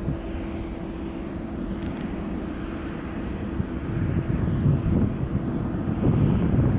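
Airbus A320 jet engines running: a low rumble with a steady hum that grows louder about four seconds in.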